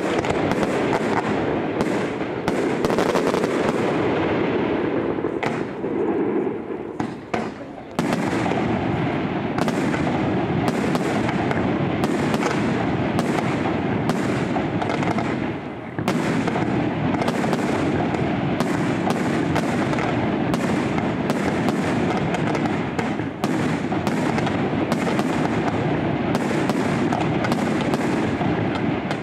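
Fireworks display: a dense, unbroken barrage of shell bursts and crackling, with a short lull about seven seconds in and a brief dip about halfway through.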